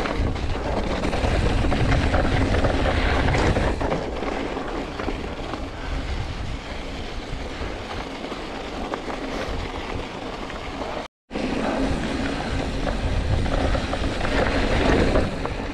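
Mountain bike rolling over a rough gravel and rock trail, heard from a camera on the rider: a steady rumble of tyres and bike rattle, with wind buffeting the microphone. The sound drops out for a moment about eleven seconds in.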